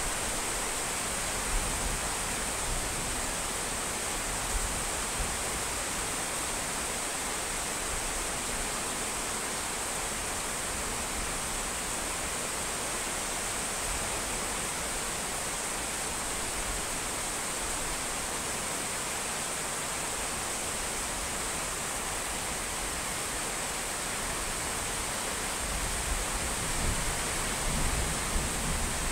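Steady rain falling, an even hiss. A low rumble comes up near the end.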